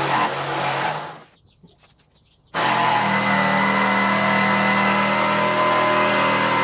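Black & Decker jigsaw cutting through thick timber with a blunt metal-cutting blade, the wrong type for wood. It runs, stops about a second in, then starts again about two and a half seconds in and runs steadily.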